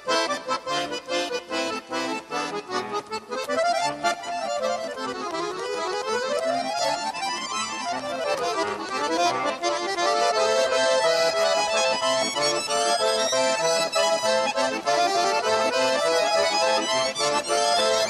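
Accordion music: quick, detached notes at first, then rising and falling runs, then long held chords from about ten seconds in.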